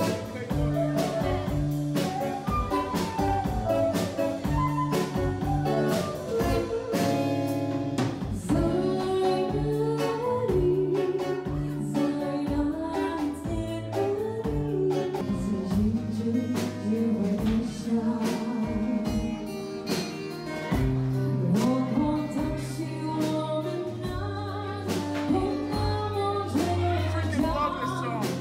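Live band playing a song: a woman singing lead over acoustic guitar and a drum kit keeping a steady beat.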